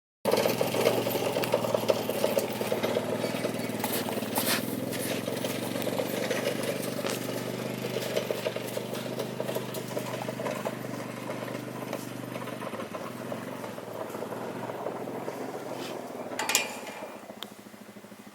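A vehicle engine running steadily, with scattered clicks over it. Its low hum fades about two-thirds through, and the overall sound drops off sharply near the end.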